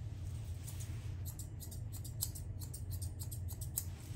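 Blending (thinning) shears snipping quickly and repeatedly through a Westie's wiry leg coat, about four or five crisp clicks a second, over a steady low hum.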